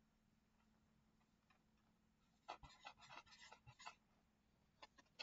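Near silence, then about two and a half seconds in, a quick run of pen strokes scratching on paper for about a second and a half, with a couple more strokes near the end.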